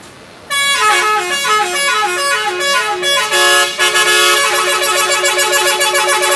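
Telolet bus horn, a set of air-horn trumpets, playing a loud tune that starts suddenly about half a second in. The short notes step up and down, then give way to a faster, wavering run of tones from about four seconds in.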